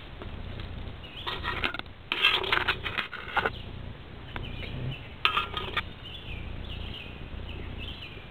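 Dry leaf litter rustling and crackling, with clicks and clatter as a multimeter and its test leads are handled on the ground. It comes in three short bursts: about a second and a half in, a longer one from about two to three and a half seconds, and a brief one about five seconds in.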